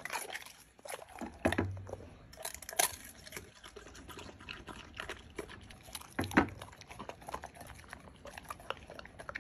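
Chocolate Labrador retriever eating off a plate: a string of wet licking, lapping and chewing smacks, with a few louder thuds about a second and a half in and again past six seconds.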